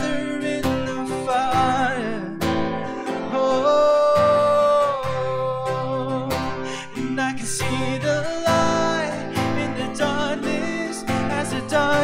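Worship song on strummed acoustic guitar with a wordless sung 'oh' melody, and one long held note about four seconds in.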